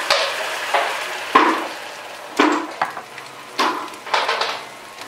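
Mixed vegetables frying in a nonstick frying pan as hot water is added: the sizzle surges sharply about six times and dies back after each surge.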